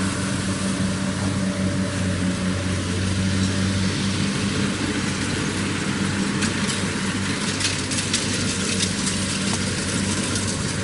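Kubota DC60 combine harvester's diesel engine running steadily under load while harvesting rice, a constant mechanical drone with a low hum. A scatter of sharp clicks and crackles comes in over it in the second half.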